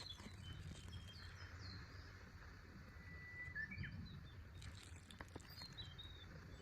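Faint forest ambience: small birds chirping and twittering at scattered moments, with one thin held whistle about three seconds in, over a low steady rumble.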